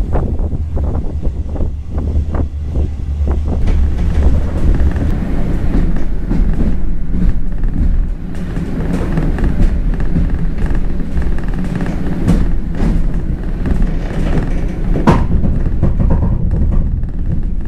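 Passenger train running, heard from inside the carriage: a steady low rumble with scattered knocks and clicks from the running gear.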